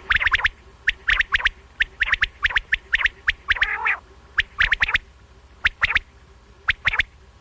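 Quail calling: quick, sharp, high notes in groups of two to four, repeated again and again, with a lower, rougher call about four seconds in.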